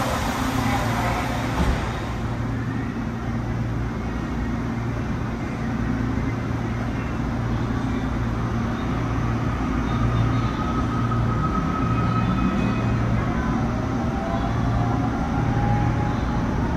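Interior of an LRTA 2000-series Rotem light-rail car: the doors close with a short thump about two seconds in, then the train pulls out of the station. A steady low hum runs under it, and faint tones rise in pitch in the second half as it gathers speed.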